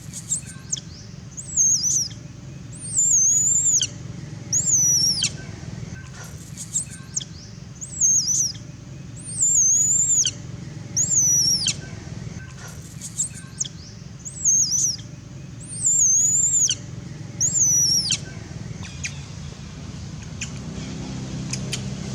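Baby long-tailed macaque crying: a long run of loud, very high-pitched calls, each sliding down in pitch at the end, one every second or two and sometimes in pairs. The calls stop a few seconds before the end, leaving a steady low rumble.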